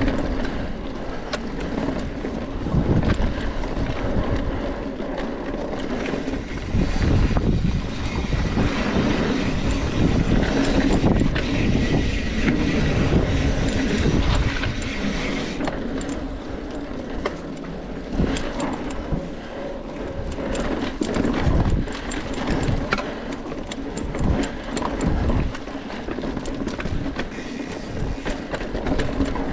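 Off-road bicycle ridden fast over a rough dirt course: steady wind noise and rumble with irregular thuds and rattles from the bike over bumps.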